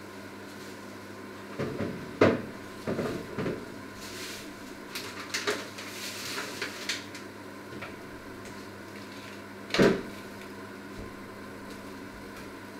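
Kitchen knocks and clatter, like cupboard doors and pots being handled: a cluster of sharp knocks about two seconds in, a scatter of light clicks, and one loud knock near the ten-second mark. A steady low hum runs underneath.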